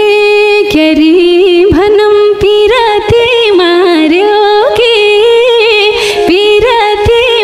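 A woman singing a Nepali folk song phrase solo, with long held notes and wavering, ornamented turns between them.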